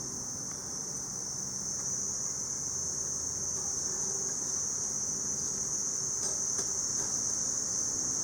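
Steady high-pitched chorus of insects, cricket-like and unbroken, with a faint low steady hum beneath it.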